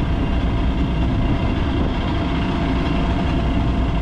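Mercury outboard motor on a rescue boat running steadily during its routine test run.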